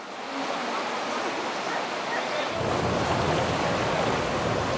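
Floodwater rushing steadily, with a constant watery noise. It fades in at the start and grows fuller and deeper about halfway through.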